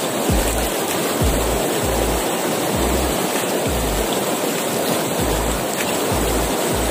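River rapids rushing and churning: a steady, dense roar of whitewater all around.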